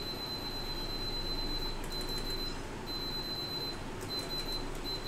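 Hot air rework station blowing with a steady hiss, over a high, thin electronic tone that keeps cutting out and coming back. A few faint clicks come about two seconds in and again near the end.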